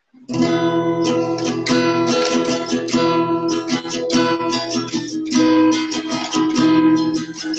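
Acoustic guitar strumming chords, starting a moment in: the instrumental intro of a song, before any singing.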